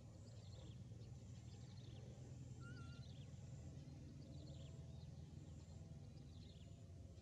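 Faint outdoor ambience: a steady low hum with scattered faint, short, high chirps.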